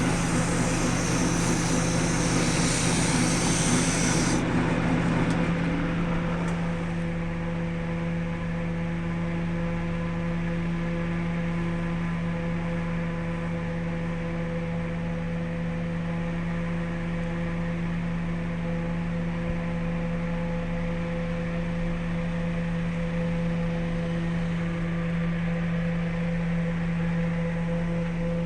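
Wood lathe motor running with a steady hum. For the first four seconds or so a louder hiss of work on the spinning wood is heard, then it stops and the lathe keeps running.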